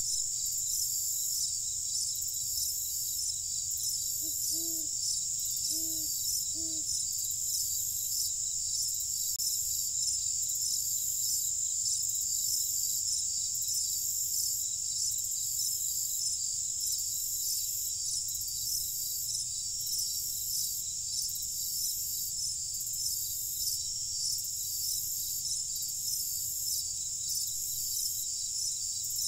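Steady, high chorus of night crickets, trilling with a regular pulse. About five seconds in, three short low hoots sound over it.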